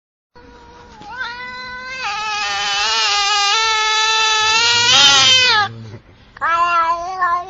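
Domestic cat meowing: one long drawn-out meow that grows louder over about five seconds, then a shorter meow begins near the end.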